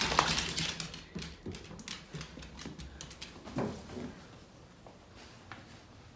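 American foxhound rubbing and burrowing its face and body into a plush fabric dog bed, with rustling and scrabbling that is loudest in the first second or so and then fades. A short vocal sound comes about three and a half seconds in.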